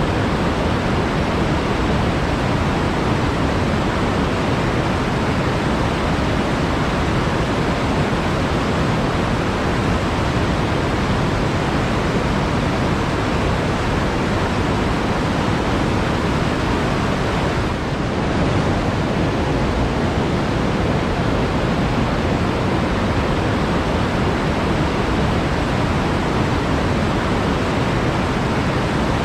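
Flowing water rushing steadily, with its weight in the low and middle range, with one brief slight dip a little past halfway.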